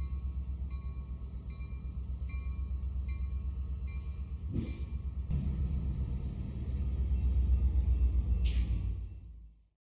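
A train running with a steady low rumble and fast pulsing, with a light repeated ring in the first few seconds and two short hisses, one about halfway through and one near the end. The sound fades out just before the end.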